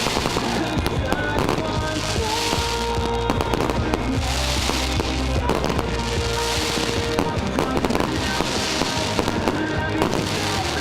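Fireworks going off: a rapid run of bangs and cracks, with swells of crackling hiss every couple of seconds. A song with held notes plays alongside.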